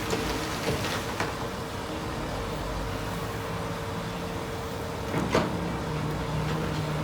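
Heavy machine engine running steadily, with a few sharp knocks, the loudest about five seconds in.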